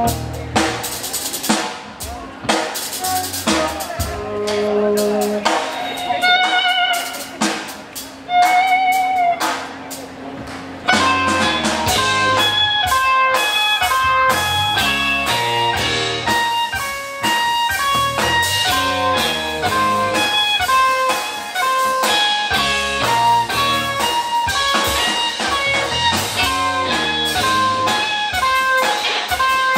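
Live rock band playing an instrumental passage on two electric guitars, bass and drums. A guitar holds and bends long notes at first; about eleven seconds in the band gets louder and goes into a fast, steadily repeating guitar figure.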